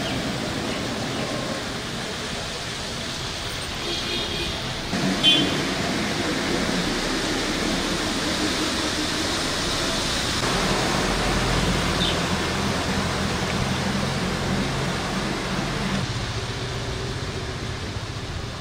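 Motor vehicles driving through floodwater on a street: a steady wash of splashing, churning water and traffic noise. A brief high ringing tone sounds about five seconds in, and a vehicle engine's low hum comes in around the middle and fades near the end.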